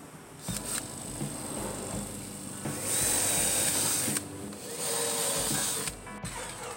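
Cordless drill running in bursts, its twist bit boring holes into pine boards. The two longest and loudest runs come a little past the middle.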